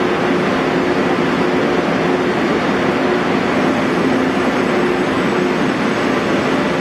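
Passenger train running at an underground station platform: a steady, even noise with a faint low hum, without change in level.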